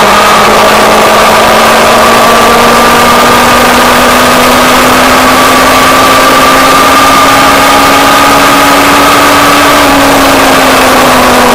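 Motorcycle engine at a steady cruise, its note rising slowly and then dropping about ten seconds in as the throttle eases, under heavy wind rush on the microphone.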